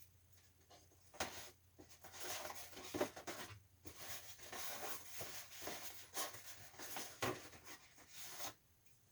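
Irregular scratchy rubbing and crackling from about a second in until near the end, as material is worked by hand to seal an air-leak gap in a window air conditioner.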